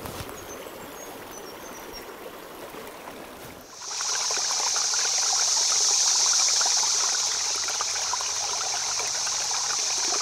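Running water of a small shallow creek. About three and a half seconds in, a louder, closer rush of babbling water takes over, then fades out at the end.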